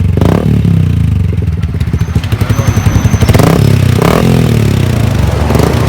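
Motorcycle engine running loudly through an aftermarket muffler with its silencer insert removed, idling with a couple of short throttle blips near the middle.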